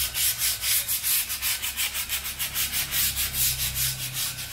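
Hand sanding: a strip of sandpaper rubbed back and forth over bare metal in quick, even strokes, about four a second, scuffing the surface ready for paint.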